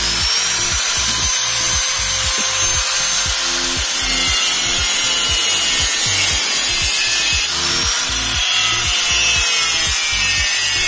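Modern-brand electric angle grinder running, its abrasive disc cutting into a steel chain sprocket with a continuous harsh hiss. The cut grows harsher about four seconds in and eases again a few seconds later.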